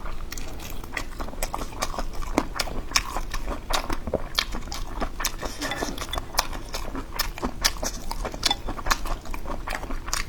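Close-up chewing and biting of spicy boneless chicken heads, with many short wet clicks and smacks of the mouth.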